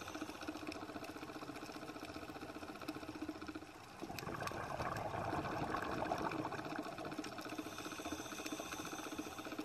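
Underwater reef ambience: a steady fine crackle, with a louder rushing noise swelling from about four seconds in and easing off after six and a half seconds.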